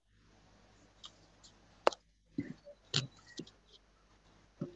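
A few scattered clicks and light taps over a faint steady background, irregularly spaced, with one sharp click about two seconds in the loudest.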